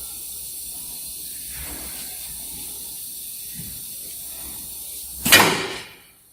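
A double-head aluminium cutting saw's pneumatic system: a low steady hiss, then about five seconds in a sudden loud burst of air that dies away within a second, typical of a pneumatic cylinder or valve exhausting as the machine cycles.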